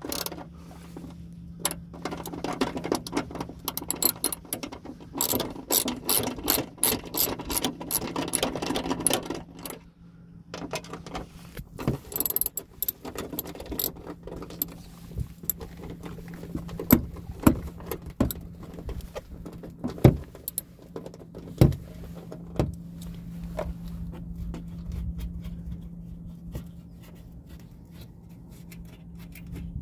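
Socket ratchet clicking in quick runs as 10 mm bolts are backed out of a plastic splash shield, then scattered sharp clicks and knocks of the tool and loosened parts. A steady low hum runs underneath.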